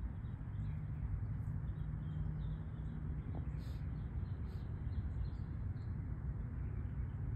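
Outdoor ambience: a low, steady rumble with faint, scattered bird chirps.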